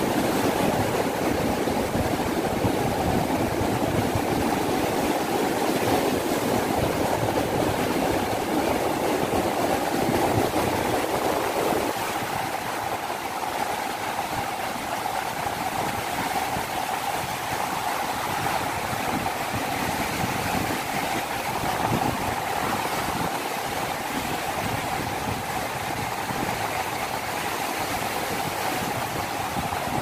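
Sea waves breaking on a beach: a steady wash of surf. About twelve seconds in, the low rumble drops and the surf goes on a little quieter.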